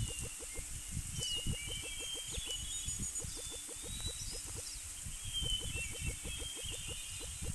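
Small birds chirping and twittering on and off over a rapid, even ticking of about eight ticks a second and a low rumble: outdoor animal ambience.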